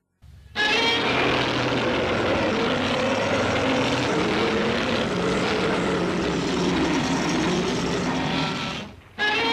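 A film sound effect: a loud, steady engine-like roar with a faintly wavering tone. It starts sharply after a moment of silence and fades out near the end, and a second similar roar starts right after.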